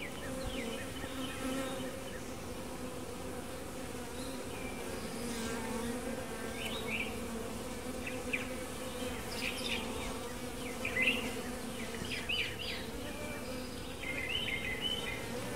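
Honey bees buzzing around the hive entrances, a steady low hum, with short high chirps scattered through.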